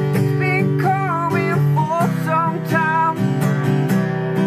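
Acoustic guitar strummed in a steady rhythm, with a voice singing over it for about the first three seconds.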